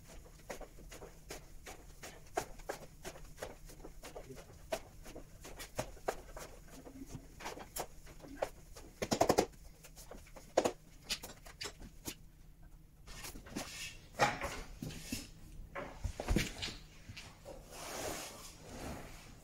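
Wet sawdust-and-paper briquette pulp being churned in a flexible plastic tub, heard sped up as a quick run of irregular squelches and clicks. It is followed by a few louder wet squelches as the pulp is scooped by hand.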